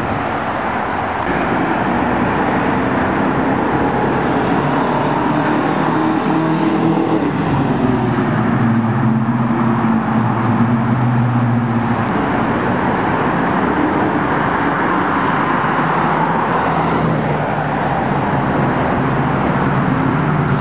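1969 Oldsmobile Cutlass S's 350 Olds V8 running with a loud exhaust heard at a distance, its pitch rising and falling as it drives, getting somewhat louder near the end as the car comes back toward the camera.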